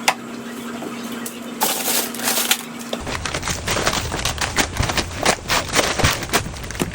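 Household items being handled and set down. A sharp click comes at the start over a steady low hum; then, after an abrupt change about three seconds in, a quick irregular run of clicks and knocks follows.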